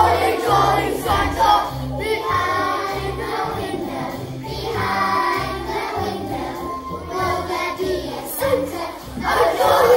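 A group of young children singing a song together over a recorded musical accompaniment with a steady, changing bass line.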